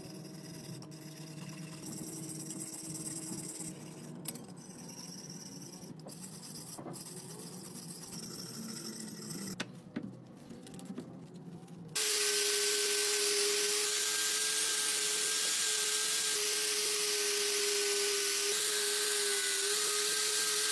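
Small power tool running steadily with a constant whine under a loud hiss. It starts suddenly after about twelve seconds and cuts off abruptly. Before it come quieter scraping and handling sounds with a few sharp clicks.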